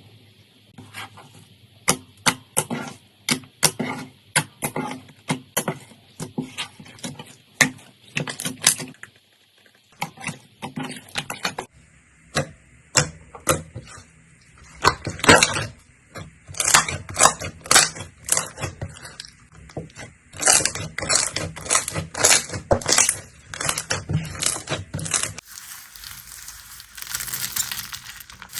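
Slime being pressed and squeezed by hand, giving runs of sharp wet pops and clicks, several a second. The texture changes a few times, ending in denser fine crackling.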